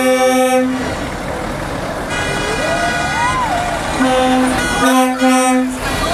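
Truck air horns sounding in several long blasts as a tractor unit drives slowly past, with the diesel engine running underneath. In the middle a thin tone wavers up and down between the blasts.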